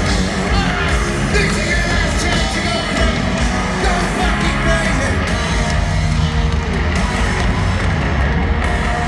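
Live heavy metal band playing loud and without a break in a stadium, recorded from within the crowd.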